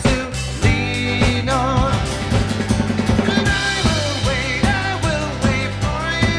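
Live band playing an up-tempo pop song, the drum kit keeping a steady beat with a wavering melody line over it.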